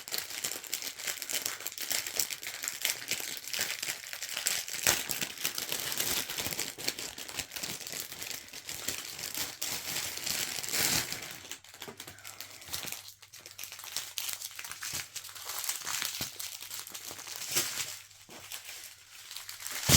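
Small plastic bags of diamond painting drills crinkling and rustling as they are handled, with brief lulls.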